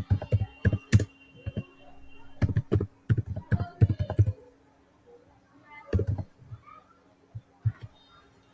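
Computer keyboard typing: quick runs of keystrokes in three or four short bursts with pauses between, over a faint steady hum.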